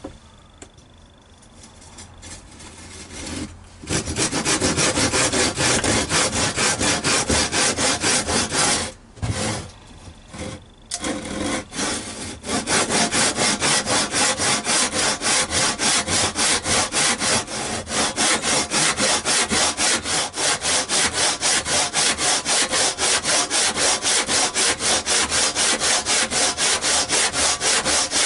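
Handsaw cutting through an old, weathered timber beam: steady back-and-forth strokes begin about four seconds in, break off briefly around the middle, then run on evenly. Slow going, which the owner puts down to an aging saw.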